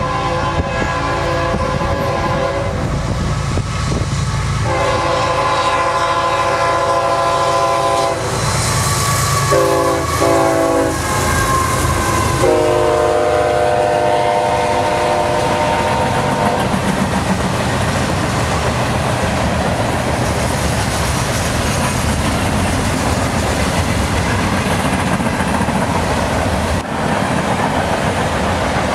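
CSX freight locomotive's air horn sounding the grade-crossing signal of long, long, short, long blasts, the last blast lower in pitch as the locomotive passes. Its long train of freight cars then rolls by with a steady rumble and clickety-clack of wheels over rail joints.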